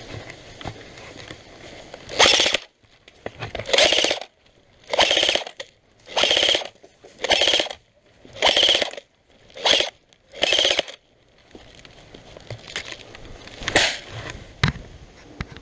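Airsoft rifle with a bipod firing eight short full-auto bursts, about one a second, then one brief burst near the end.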